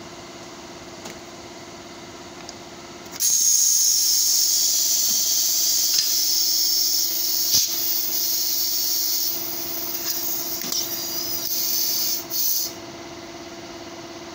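Compressed air hissing loudly into a closed blow mould through a hand-held copper blow pipe, inflating a soft plastic tube into a pipe elbow. The hiss starts abruptly a few seconds in, lasts about nine seconds, and cuts off sharply after a last short puff. A steady machine hum runs underneath.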